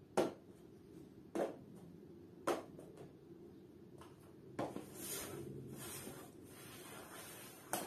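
Cups being set down on a board with sharp knocks about a second apart, then slid around on it with a few seconds of scraping for the shell game, ending in another knock.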